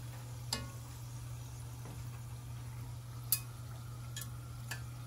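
Spring rolls deep-frying in hot oil with a faint steady sizzle, over a steady low hum. A few light clicks as the utensil that turns them taps the pot, the loudest a little after the middle.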